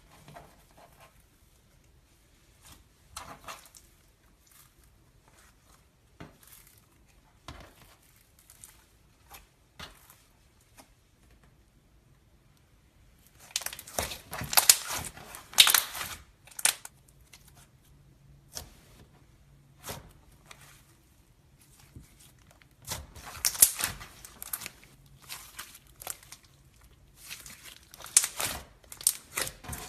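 Slime being squeezed and stretched by hand, making crackling, popping clicks. The clicks come scattered and faint at first, then in two dense bursts, one in the middle and one near the end.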